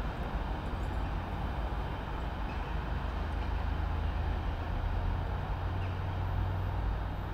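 Diesel railcar running into the distance as it pulls away, a steady low rumble.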